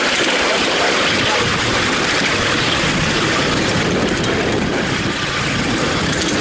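Miniature railway train running along the track, heard from a passenger car: a steady, even rushing rumble.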